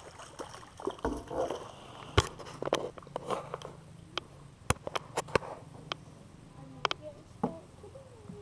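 A crappie being netted and brought into a boat: scattered sharp clicks and knocks as the fish flaps in the landing net and the net and gear knock against the boat.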